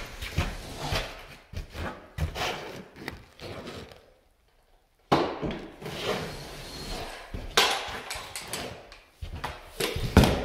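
Irregular clunks, knocks and scraping from an 8-inch drywall flat box and its handle being worked along a ceiling joint and handled, with the sound dropping out completely for about a second around four seconds in.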